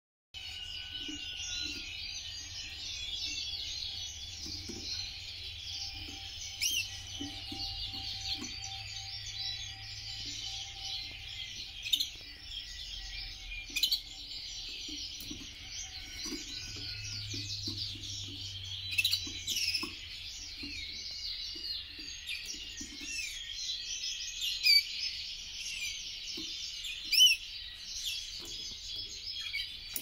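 Canary singing a continuous, rolling warbling song full of fast trills, with a few sharp, louder notes standing out.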